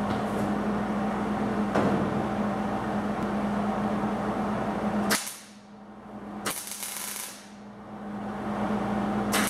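Electric welding arc crackling with a steady hum as 18-gauge sheet metal is stitch-welded along the pie cuts of a repair panel. It welds in runs: one of about five seconds that cuts off, a brief burst about a second later, and another run starting near the end.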